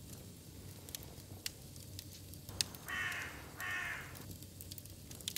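A crow cawing twice in quick succession, two harsh calls of about half a second each, about three seconds in, over a faint hum.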